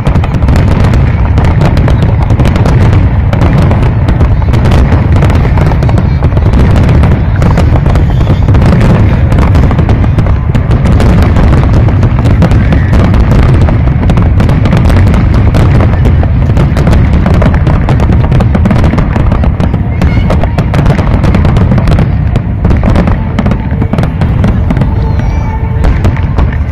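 Fireworks display in full barrage: a loud, dense, unbroken run of bursts and crackles, easing off a little near the end.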